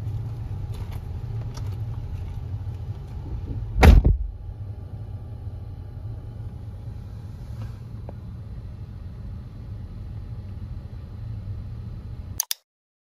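A car door slams shut once about four seconds in, over the steady low hum of an idling car heard from inside the cabin. Two sharp clicks come near the end, then the sound cuts off.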